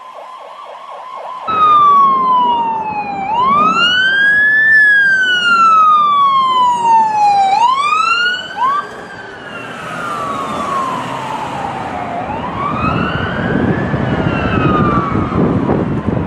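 American ambulance siren wailing, its pitch sliding slowly down and up in long sweeps of a few seconds each. It cuts in suddenly about a second and a half in, after a fainter fast-pulsing siren tone. After about nine seconds it is quieter, with a low vehicle rumble underneath.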